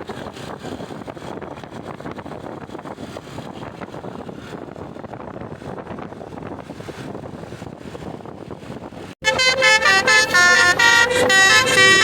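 Roadside traffic noise, then about nine seconds in a bus's telolet horn starts suddenly and loud, playing a quick tune of stepping notes.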